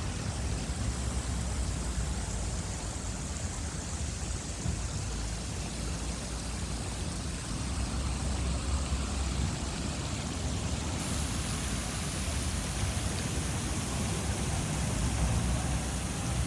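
Steady rush of fountain water falling and splashing, with a low, uneven rumble underneath.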